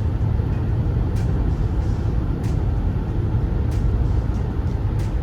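Road and engine noise inside a moving car's cabin: a steady low rumble, with faint sharp ticks about every second and a quarter.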